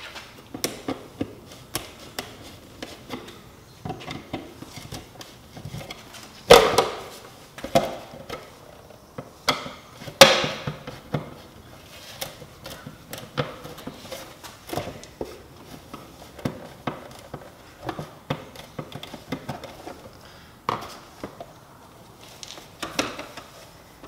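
A screwdriver clicking and scraping on the screws of a plastic RV tail light housing as they are backed out, with irregular small clicks throughout. Two louder knocks come about six and ten seconds in as the plastic housing is handled and worked loose from the body.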